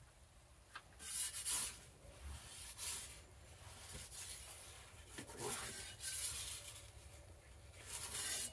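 Metal pizza peel scraping across the stone floor of a Gozney Dome oven as the pizza is turned: about six short scrapes, one every second or so.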